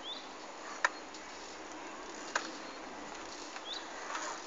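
Steady outdoor hiss with two short rising bird chirps, one at the start and one near the end, and two sharp clicks, about one and two and a half seconds in.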